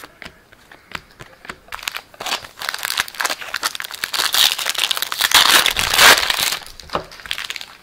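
A few light clicks of baseball cards being handled, then the foil wrapper of a trading card pack crinkling as it is worked open, loudest about six seconds in.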